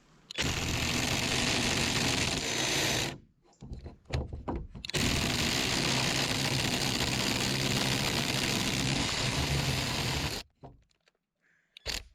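Two cordless impact drivers, a Hyper Tough and a Milwaukee, hammering at full speed under a stress test. They run for about two and a half seconds, stutter briefly, then start again and run for about five seconds before cutting off suddenly.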